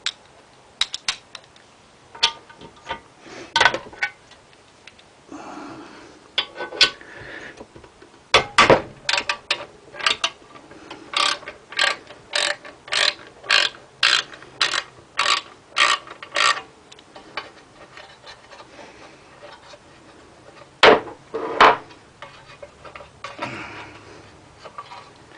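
Socket ratchet working the heat-shield bolts on a Predator 212 engine: scattered clicks and knocks, then a steady run of ratchet clicks about two a second for several seconds, and two louder metal knocks near the end.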